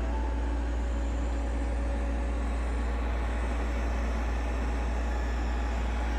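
Robot vacuum cleaners running: a steady motor and brush hum with a deep low drone underneath.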